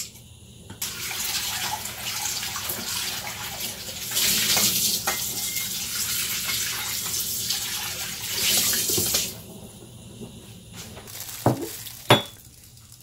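Kitchen tap running into a sink for about eight seconds, then turned off; a couple of sharp knocks follow near the end.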